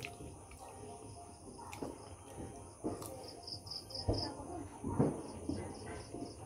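A cricket chirping in short runs of evenly spaced high pulses, about five a second, with a few soft low thumps, the loudest about four and five seconds in.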